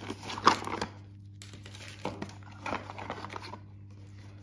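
Paper wrapping crinkling and rustling as a coiled cable is unwrapped from it, in irregular bursts: a sharp crackle about half a second in, more crinkling from about one and a half to three and a half seconds, then it dies away.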